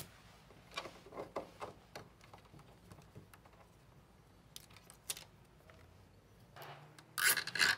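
Plastic cable ties and wiring being handled: scattered light clicks and rustles, then near the end a short, louder rasp as a cable tie is ratcheted tight.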